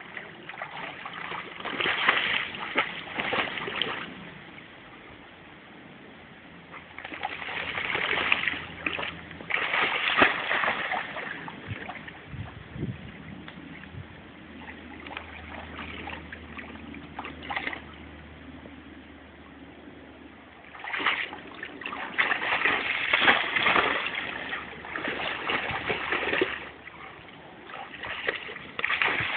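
A Labrador splashing in river water in three loud bouts: one near the start, one about a third of the way in, and a longer one near the end. Quieter lapping water fills the gaps between them.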